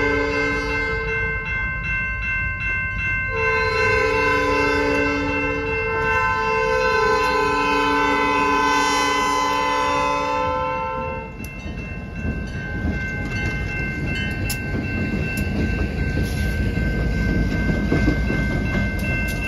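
CN freight locomotive's multi-chime air horn sounding several blasts for a grade crossing, the last long one ending about eleven seconds in, over the steady ring of the crossing bell. Then the locomotive's engine and wheels rumble past, growing louder near the end.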